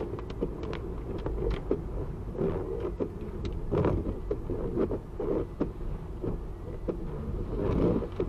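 Car interior on the move: a steady low rumble of road and engine noise, with gusty wind buffeting the vehicle and irregular short knocks throughout, as strong storm winds arrive near a tornado.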